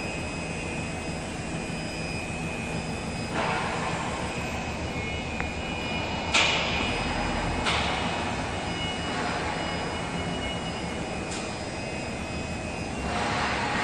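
A 5-axis CNC milling machine running, with a steady high whine from its high-speed spindle over a constant rushing noise. The sound swells briefly several times, about three, six, eight and thirteen seconds in.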